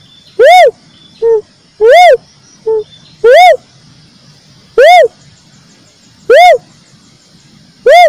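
Cuckoo-dove (uncal) calling, a recorded lure call: loud single hoots that rise and fall in pitch, six of them about every one and a half seconds, with a shorter, softer note after each of the first two.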